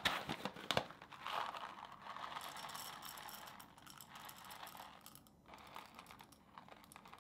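Faint crinkling of a paper coffee bag as it is handled and tipped, with a few light clicks in the first second.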